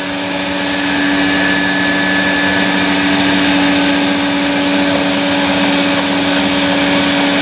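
Countertop blender motor running steadily, puréeing stewed savoy cabbage into a cream, with a steady hum that builds a little over the first second and then holds.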